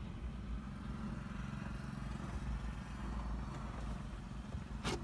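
Steady low mechanical hum like an engine running at a distance, with one sharp click just before the end.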